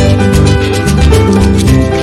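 Loud background music with a steady beat, plucked strings and percussion.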